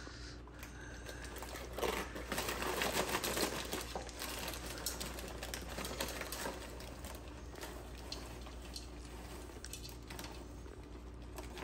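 Popped popcorn poured from a paper bag into a bowl: the bag crinkles as it is lifted, then from about two seconds in comes a steady patter of many light pieces dropping in, with the bag rustling.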